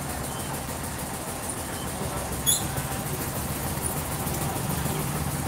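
Steady low mechanical hum, with a single sharp click about halfway through.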